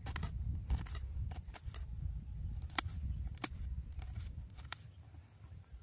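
Kitchen knife chopping onion on a plate: irregular sharp clicks as the blade strikes the plate, over a steady low rumble.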